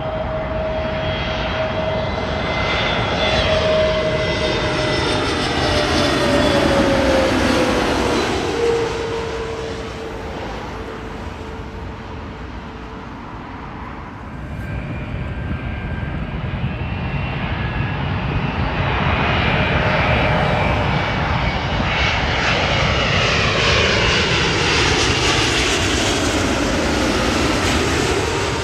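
Jet airliner engines passing low overhead on approach to land. The whine drops in pitch as the aircraft passes, about eight seconds in. The sound eases around the middle, then builds again to a second loud pass near the end.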